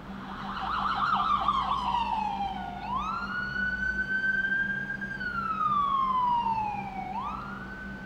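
AI-generated ambulance siren sound effect from ElevenLabs' text-to-sound generator: a wailing siren whose pitch slides slowly down, snaps back up about three seconds in, holds, then slides down again and snaps up once more near the end.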